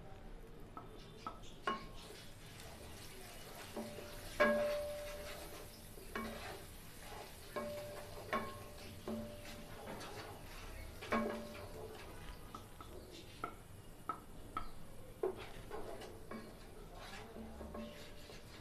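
Wooden spatula stirring ground spices and ginger-garlic paste into hot mustard oil in a metal pan. It makes irregular scrapes and knocks against the pan, a few of which ring briefly, over a faint sizzle.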